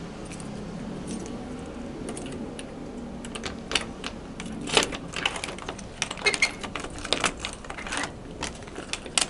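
Keys jangling and a key clicking and scraping against a door's metal cylinder lock as it is fitted into the keyhole. A run of sharp metallic clicks starts about three seconds in and keeps going.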